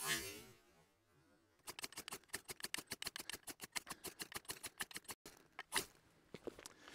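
Ferrocerium (ferro) rod struck with a knife, throwing sparks onto wood shavings: one scrape at the start, then a fast run of short strikes, several a second, for about three and a half seconds, and one more scrape near the end.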